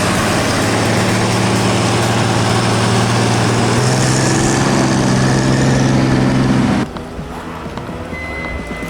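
An engine running at a steady pitch under loud rushing noise, its pitch stepping up slightly about four seconds in. The engine sound cuts off abruptly about seven seconds in, leaving a quieter background with a slowly rising whine.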